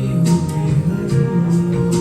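Music from a Nepali Christian worship song, carried by guitar with regular strums and held notes.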